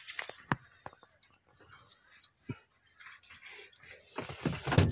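Handling noise from a person moving about and climbing down from a truck cab with a phone in hand: a few scattered light clicks and knocks, then denser rustling in the last second.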